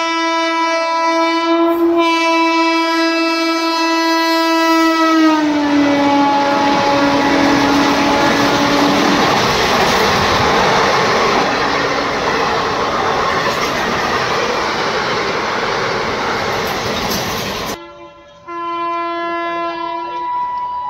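Overtaking express train passing at speed: its horn sounds long as it approaches, the pitch drops as the locomotive goes by, then the coaches rush and rattle past. After a sudden break near the end, a horn sounds again.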